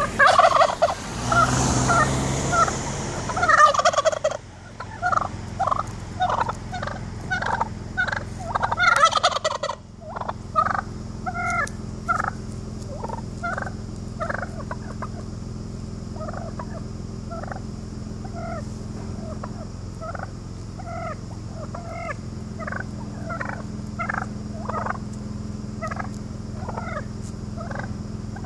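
Wild turkeys calling with many short, separate calls, a few a second, loudest in the first few seconds and again about nine seconds in.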